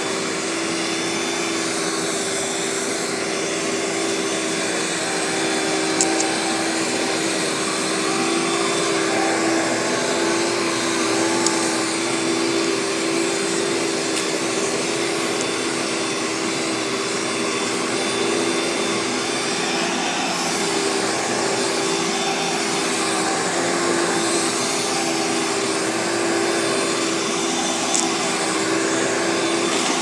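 Carpet Pro commercial upright vacuum running as it is pushed over carpet: a steady motor whine over the rush of air, with a few brief ticks.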